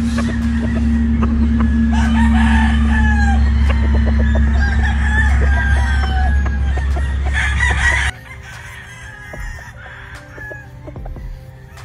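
Gamefowl roosters crowing and clucking over a steady low rumble. The sound cuts off abruptly about eight seconds in, leaving a quieter stretch of scattered clucks.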